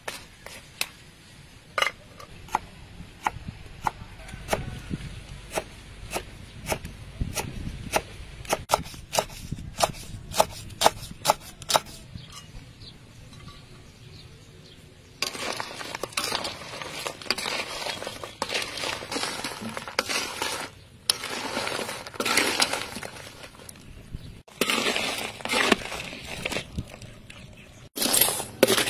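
Crabs and metal cookware: a run of sharp clicks and clinks as the crabs shift against a metal bowl, then, about halfway, longer noisy bursts of crabs being stirred with a metal ladle in a wok.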